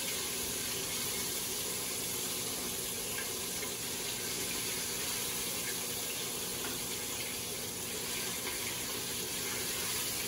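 Chicken deep-frying in a tall stockpot of hot peanut oil, the oil sizzling with a steady, even hiss as the pieces cook.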